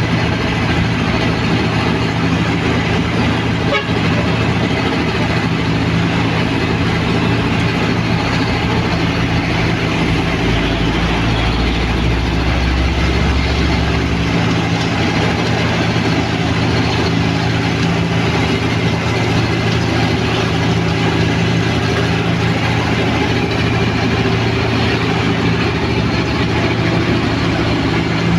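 Cold milling machine working on asphalt: its diesel engine running steadily under load with the dense grinding noise of the milling drum. A deeper low hum joins for about four seconds near the middle.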